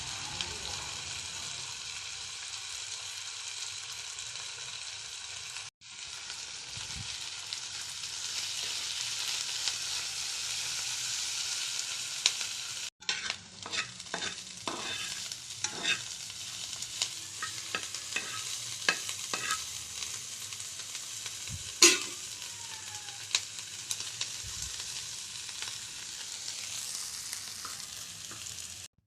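Food sizzling as it fries in hot oil in a pan, a steady hiss that drops out briefly twice. In the second half a spatula clicks and scrapes against the pan as the food is stirred, with one louder knock.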